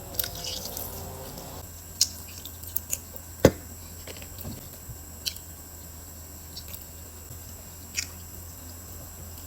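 Close-miked eating: wet chewing and mouth clicks come in scattered bursts, one much sharper than the rest about three and a half seconds in. A steady low hum runs underneath.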